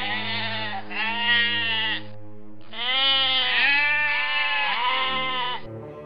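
Sheep bleating: two bleats, a short pause, then three more in quick succession.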